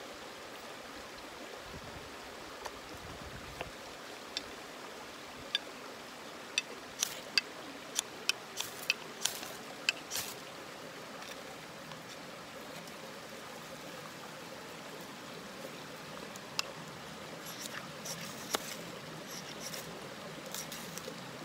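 Ferrocerium rod scraped with a steel striker to throw sparks onto feather-stick shavings and light them: a run of about a dozen short, sharp scrapes in the middle and a few fainter ones near the end, over a steady background hiss.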